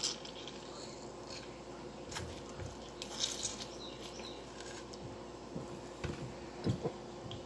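Faint kitchen handling sounds: a few soft knocks and rustles against a steady low hum.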